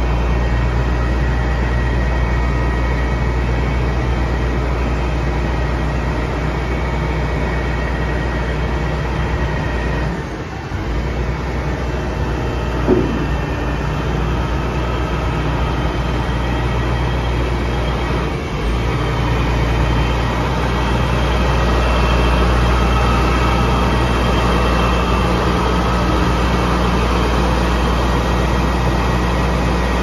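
Truck-mounted concrete boom pump's diesel engine and hydraulics running steadily as the boom is moved by remote control. The drone dips briefly about ten seconds in and again near eighteen seconds, then runs a little louder.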